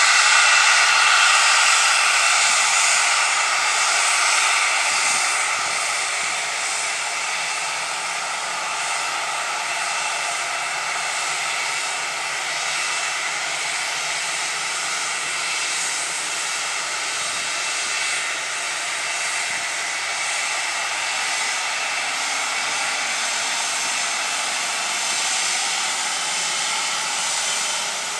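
Twin Pratt & Whitney Canada PW545C turbofans of a Cessna Citation XLS+ whining at taxi power: a steady high whine over a hiss, loudest at first as the jet passes close, then easing and holding steady.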